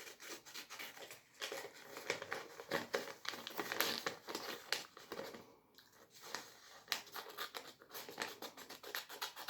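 Scissors cutting paper, with the paper rustling and crinkling as it is handled: a quiet, irregular run of snips and rustles, pausing briefly a little after the middle.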